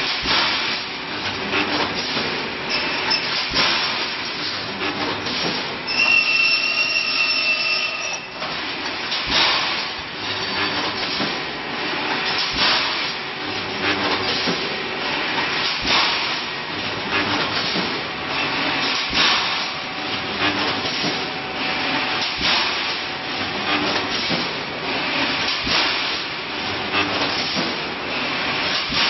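Wire mesh welding machine running through its cycle: a continuous clattering mechanical noise with a hissing, banging pulse every second or two as the welding heads come down. A high whine rings for about two seconds near the start.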